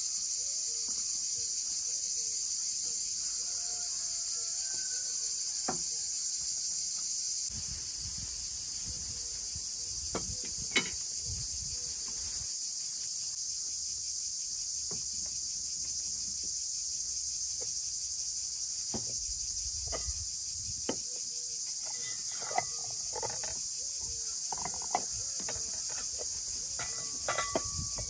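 A steady, high-pitched chorus of insects, with a few light knocks and clicks near the end as small clay pots are set down on a table.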